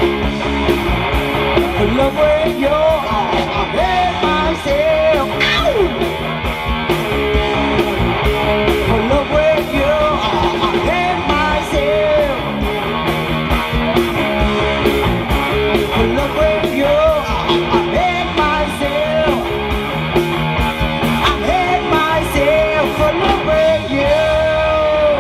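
Live rock band playing loudly: a singer's held notes over guitar and a steady drum beat.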